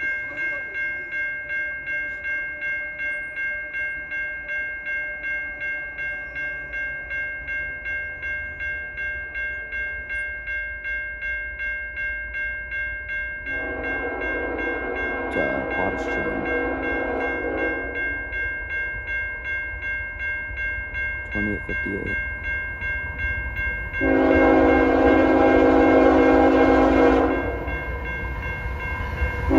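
CN freight locomotive air horn sounding two long blasts, the first about halfway through and the second near the end, as the train draws closer. A steady high ringing pulses about twice a second underneath for most of the time.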